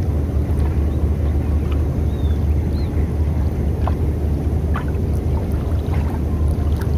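A small boat's 8 hp engine idling with a steady low rumble.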